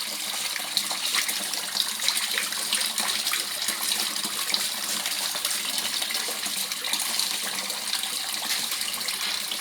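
Water in a koi pond splashing and trickling steadily, with many small splashes.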